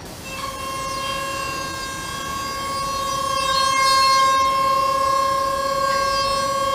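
High-speed CNC milling spindle whining steadily as its end mill cuts along the edge of a part. The whine comes in about half a second in, holds one high pitch and grows louder toward the middle.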